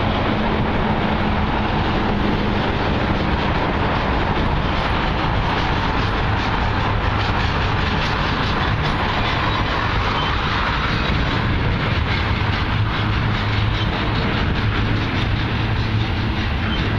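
Norfolk Southern freight train passing slowly at close range: a steady rumble of wheels on rail with light clicking of the cars over the rail joints and a low engine hum.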